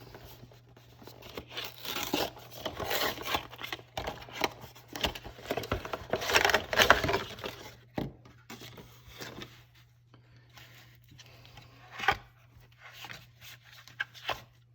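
Packaging of a screwdriver set being torn and crinkled open by hand: irregular tearing and rustling, loudest about halfway through, then thinning to a few scattered clicks and knocks.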